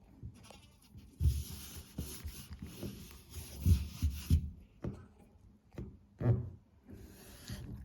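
Close rubbing and scraping with irregular soft low thumps, the scraping loudest from about one second in to about four and a half seconds, and again briefly near the end.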